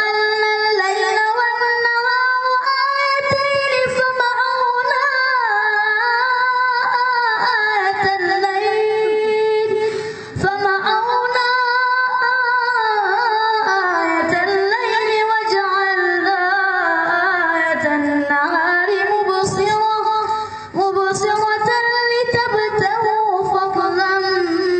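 A young boy chanting Quran recitation into a microphone in a melodic, drawn-out style, each syllable stretched into long ornamented lines. Three long phrases, with a short breath about ten seconds in and again about twenty seconds in.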